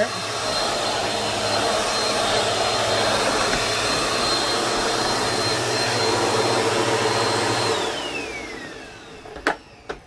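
Bissell PowerForce Helix upright vacuum cleaner running steadily with a high whine, then switched off about eight seconds in, its motor winding down with a falling whine. Two sharp clicks near the end.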